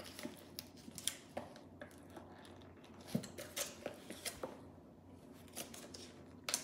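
Lid of a plastic sauce tub being worked open by hand: a scatter of short, sharp plastic clicks and snaps at irregular intervals, one of the louder ones near the end.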